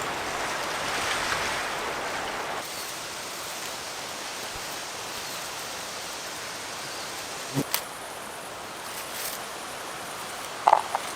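Steady rushing sound of moving water, which drops in level abruptly about two and a half seconds in. A single sharp knock comes a little past the middle.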